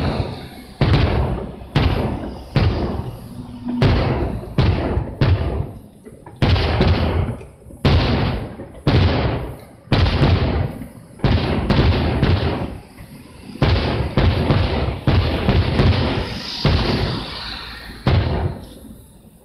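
Aerial firework shells bursting in quick succession, about one bang a second, each followed by a rolling echo. The bangs thin out and grow quieter near the end.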